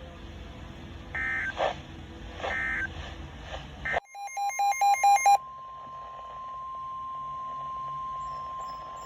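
Emergency Alert System data tones on NOAA Weather Radio: three short electronic squawks about a second and a half apart, then about four seconds in a loud, rapid burst of pulsing data tones. The burst gives way to the steady single-pitch 1050 Hz weather-radio warning tone.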